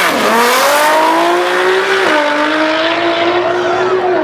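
Twin-turbo V6 of a heavily tuned Nissan GT-R drag car at full throttle on a quarter-mile pass. The engine note dips as the car goes by close, climbs, and drops again with an upshift about two seconds in, then pulls on steadily as the car runs away down the strip.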